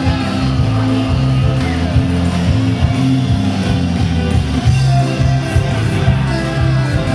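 Live rock band playing over a concert PA: electric guitar and a bass line of short repeated notes keep a steady driving rhythm.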